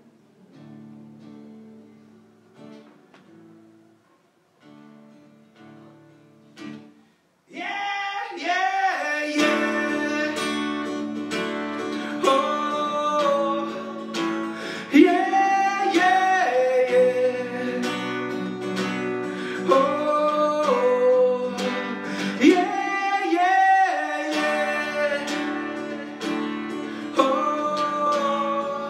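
Pop-rock song with a soft guitar intro. About seven and a half seconds in, the full band comes in with a man singing the lead.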